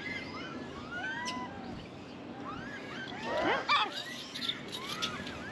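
Japanese macaques calling: many short, arching calls that rise and fall, overlapping from several animals, with a louder tangle of calls about three and a half seconds in.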